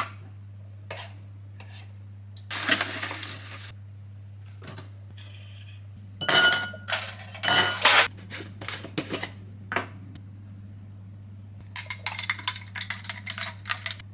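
Kitchen clatter of dishes and glass: a spoon knocking in a ceramic bowl and a drinking glass clinking, some knocks with a short ring. A steady low hum runs underneath.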